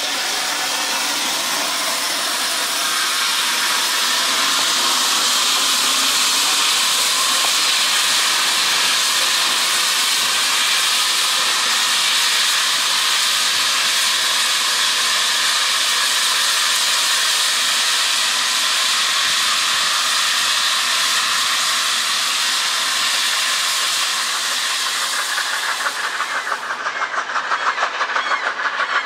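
Steam hissing steadily from a standing NG/G16 Garratt narrow-gauge steam locomotive. Near the end the hiss gives way to a fast, even pulsing.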